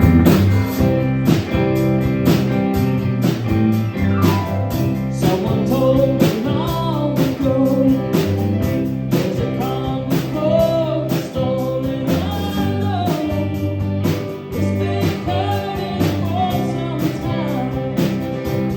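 A band playing a rock song: a steady drum beat with bass and guitar, and a wavering melody line riding over them.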